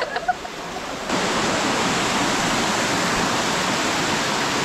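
Waterfall rushing: a steady wash of falling water that grows louder about a second in.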